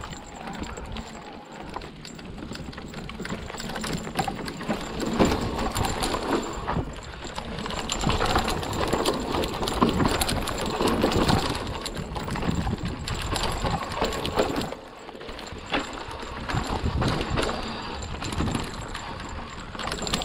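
Hardtail e-mountain bike riding a dry dirt trail: tyres rolling over the ground and the bike clattering and rattling over bumps, with low wind rumble on the microphone.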